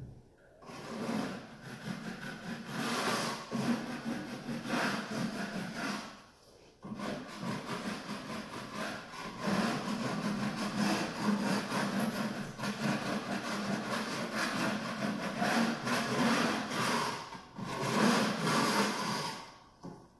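A wide drywall knife scraping against a wall in repeated strokes, with a short pause about six seconds in and brief breaks near the end.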